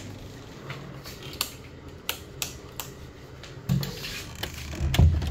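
A door being opened and walked through: a string of light clicks and knocks from the handle, latch and steps, then a heavy thud about five seconds in as the door is pulled shut.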